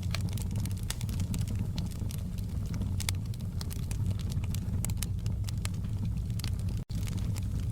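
Open log fire crackling, with many small sharp pops and snaps over a steady low rumble. The sound cuts out for an instant about seven seconds in.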